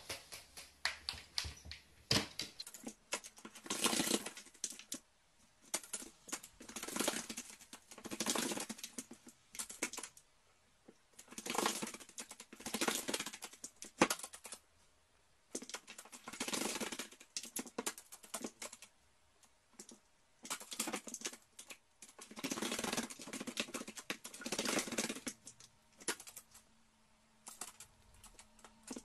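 Carrion crow bathing in a plastic basin of water, dipping and shaking its wings to splash in repeated bursts of rapid spattering, each about a second long, with short pauses between.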